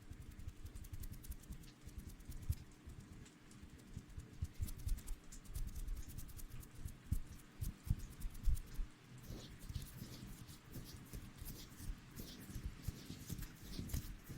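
Close-miked ASMR rustling and scratching, quiet, made of many small crackles and soft thumps that grow denser about two-thirds of the way in.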